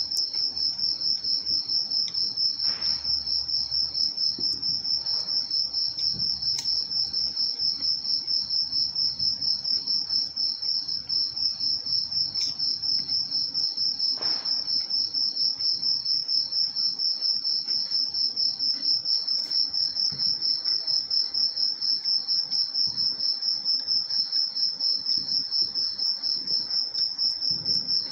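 Cricket chirping: one continuous, high-pitched trill that pulses evenly and rapidly, several pulses a second, without a break.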